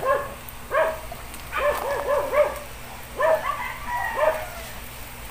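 A dog barking in quick runs of short barks: a few at the start, a single bark, then a run of four, then two more, stopping about a second before the end.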